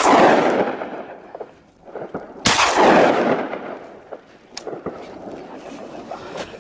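Two gunshots, one right at the start and one about two and a half seconds in, each trailing off in a long echo.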